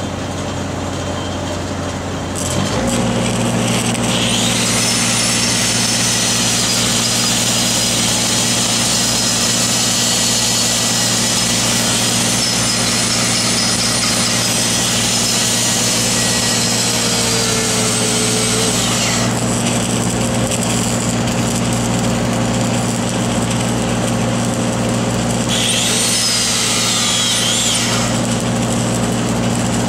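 Engine of an engine-driven welding machine running, stepping up from idle to a steady higher speed about two seconds in. A high hissing sound lies over it for about fifteen seconds and again briefly near the end.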